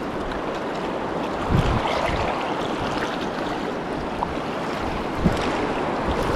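Steady rush of a fast-flowing mountain river's current, with two brief low thumps, about a second and a half in and again about five seconds in.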